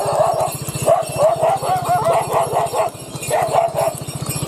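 A dog yapping in quick runs of short, high barks, twice, over the steady low pulse of a motorbike engine running.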